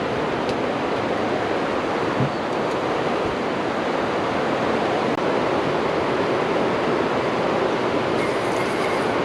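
Steady rushing roar of water released through the dam's gates into the tailwater.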